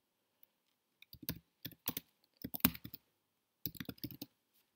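Typing on a computer keyboard: quick runs of keystrokes in four short bursts with brief pauses between them, starting about a second in.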